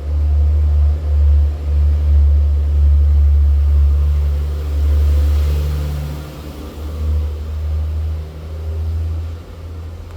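A loud low rumble with a faint hum above it, swelling and easing in level and growing quieter about six seconds in.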